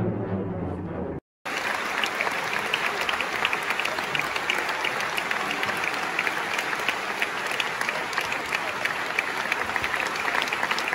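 The last second of opera music, orchestra and singing, cut off abruptly. About a second and a half in, a large theatre audience starts applauding at a curtain call, dense, steady clapping that runs on without a break.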